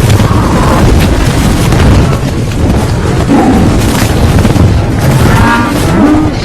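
Film sound effects of a big-cat fight: a loud, dense low rumble with heavy thuds and impacts. A snarl cuts through about five seconds in.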